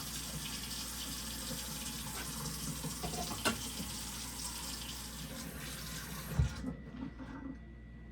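Water running from a tap into a sink, shut off about six and a half seconds in, with a sharp click midway and a low knock just before it stops.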